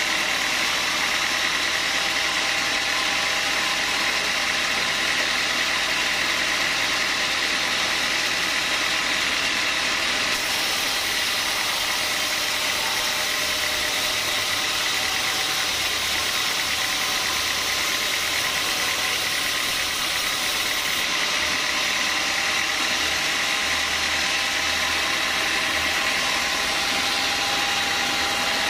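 Band saw mill running steadily while sawing hard small-leaf acacia wood. The steady machine noise holds an even high ringing tone throughout.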